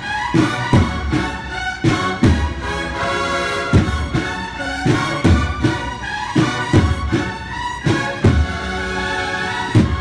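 Cornet-and-drum band (banda de cornetas y tambores) playing a procession march: a cornet melody over drums, with a bass drum beating about twice a second. The drums ease off briefly about three seconds in.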